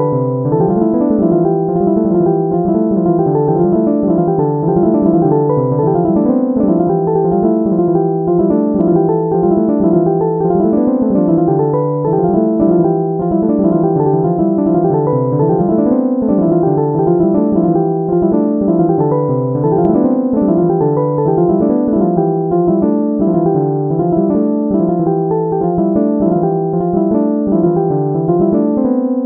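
Background piano music: a steady, flowing run of notes rising and falling in a repeating pattern.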